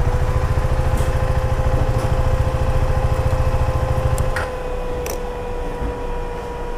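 Motorcycle running at a steady riding speed with a steady whine, heard from on the bike. The heavy low rumble drops away about four seconds in, and there are a few sharp clicks.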